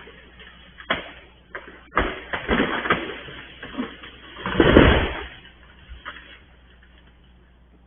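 A run of loud, sharp cracks and bangs of unknown source: one crack about a second in, a dense cluster from about two seconds in, and the loudest, longest burst near five seconds in. The recorder suspected a tree coming down or firecrackers but found no sign of either.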